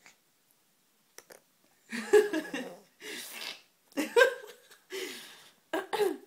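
Baby girl vocalizing in short bursts: pitched grunting sounds alternating with breathy exhales, about three times, starting about two seconds in.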